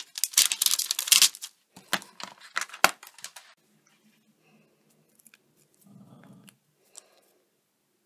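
A clear stamp being peeled off its plastic carrier sheet and the plastic stamp case handled: a quick run of crackles and clicks lasting about three and a half seconds.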